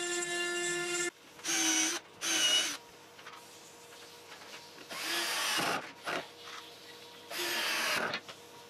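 Cordless drill-driver driving self-tapping screws into a thin wooden strip, in four short runs: two close together about a second and a half in, then one near five seconds and one near seven and a half. A steady pitched whine stops about a second in.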